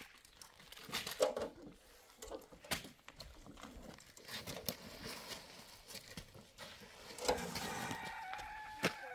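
Stones and rubble knocking as they are tossed into a metal wheelbarrow, several sharp knocks. Near the end a rooster crows.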